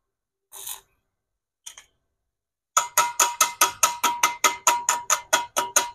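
Two short crackling bursts of arc welding as tack welds are laid on the steel gear sector of a power window regulator, building up its broken teeth. From about three seconds in, rapid metallic tapping with a ringing tone, about five strikes a second, as a chipping hammer knocks the slag off the weld.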